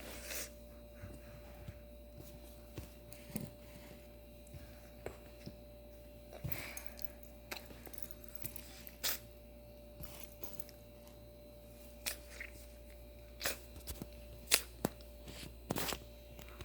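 Irregular small clicks and taps, roughly one every second or so, over a faint steady electrical hum with a thin steady tone in it.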